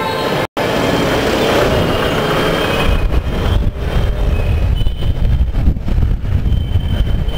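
Riding noise from a scooter moving through dense city traffic: a steady mix of traffic and wind buffeting on the microphone, with the low rumble growing heavier in the second half. The sound drops out completely for a moment about half a second in.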